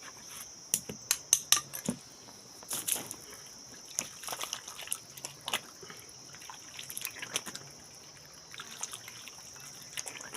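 Rusty khukuri blade being scraped and rubbed against a stone by hand, in irregular short strokes and clicks, to take off the rust. A steady high chirring of crickets runs underneath.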